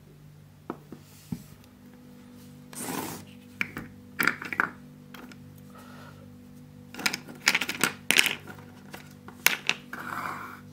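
Hard plastic sand-play tools and moulds being handled on a wooden tabletop: scattered sharp clicks and clatters, with a few short rustling scrapes in between.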